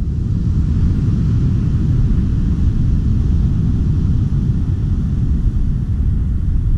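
Wind buffeting the microphone: a loud, steady, low rumble.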